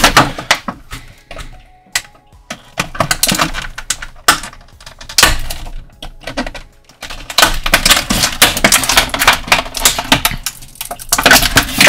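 Thin plastic toy packaging crackling and clicking in quick runs as an action figure's accessory is worked loose from it, with short pauses between the bursts.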